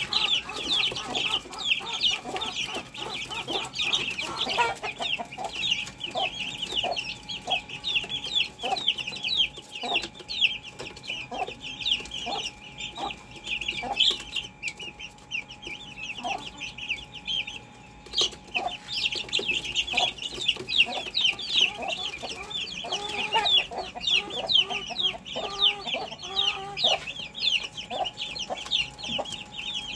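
Backyard chickens calling: a constant chatter of rapid, high-pitched peeps over scattered lower clucks. The peeping thins out for a few seconds midway, then picks up again.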